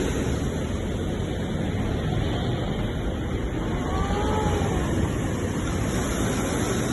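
Sea surf washing steadily, a constant low rushing noise without distinct breaks. A faint short gliding tone rises and falls about four seconds in.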